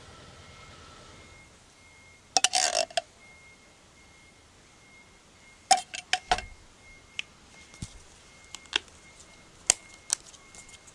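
Metal utensils clinking and scraping against a mess tin: a short scrape about two and a half seconds in, then scattered light clinks and taps.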